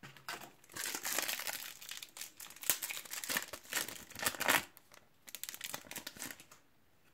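Foil wrapper of a Topps Match Attax trading-card booster pack crinkling as it is taken from the box and torn open: a dense run of crackling for about four seconds, then a few sparser crinkles.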